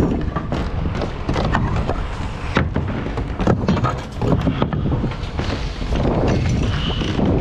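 Irregular knocks and thuds of work on OSB roof sheathing, such as boots stepping and a nail gun and lumber being set down, over a steady low rumble.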